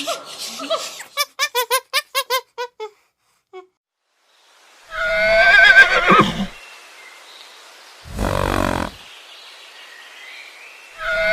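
A run of about nine quick, high chirps, then a horse whinnying loudly with a quavering pitch, a short rough blast of breath, and a second whinny starting near the end.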